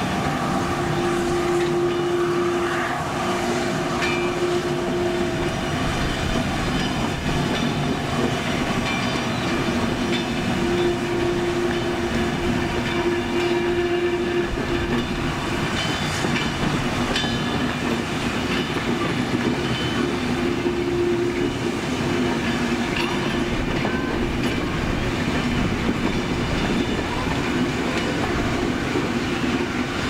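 Steam train running, a steady continuous rumble with long steady tones that come and go several times.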